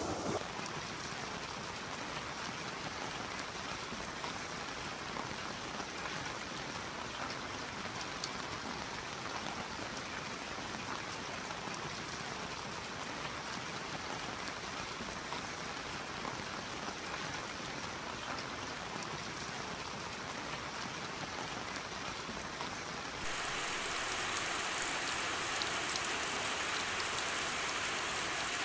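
Rain falling steadily as a dense, even hiss. About 23 seconds in it changes abruptly to a louder, brighter rain sound.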